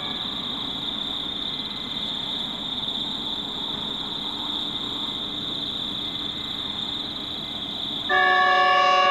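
Horn of an approaching Pacific National NR-class diesel locomotive: one long, loud multi-note chord starting about eight seconds in, over a low, steady distant rumble from the train.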